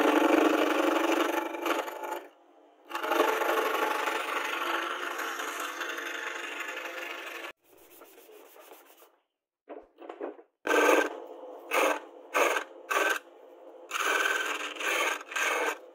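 Hand chisel cutting a spinning wooden handle blank on a belt-driven wood lathe, a dry scraping as the shavings come off. The cuts are long and continuous at first, then turn into a series of short strokes, about two a second, in the last few seconds.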